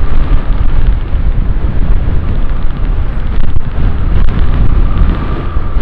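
Wind buffeting the microphone of a moving motorcycle, a heavy low rumble mixed with the bike's running and road noise.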